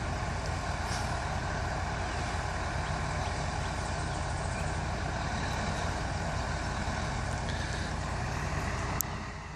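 CAT 140H motor grader's diesel engine running steadily at a distance as it grades the road. There is a sharp click about nine seconds in, and the sound drops off briefly after it.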